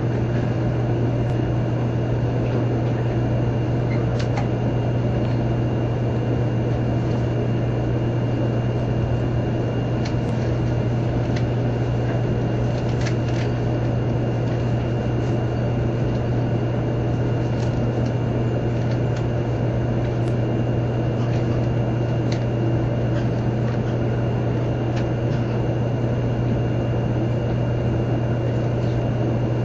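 Steady low hum and rumble inside a 100 Series Shinkansen passenger car as the train rolls slowly along the platform and comes to a stop, with a faint steady high whine and a few light clicks.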